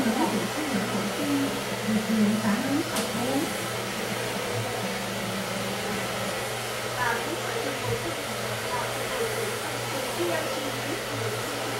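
Hand-held hair dryer running steadily as it blows on a person's long hair: an even rush of air over a low motor hum.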